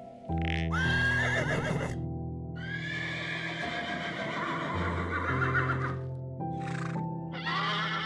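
Horses neighing, several whinnies over background music with sustained chords: a short one about a second in, a long one of about three seconds, then two shorter calls near the end.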